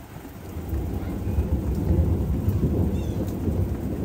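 Thunder rumbling, building about half a second in and loudest around two seconds, over steady rain.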